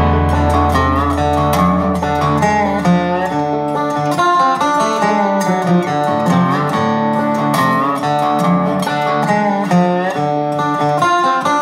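Background music: a quick plucked-string melody of many short notes over a deep held bass note that fades out about four seconds in.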